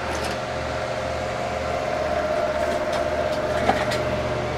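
HP Pavilion A1210N desktop PC running with its case open: a steady fan whir with a pulsing low hum and a thin whine over it, and a light click about three and a half seconds in.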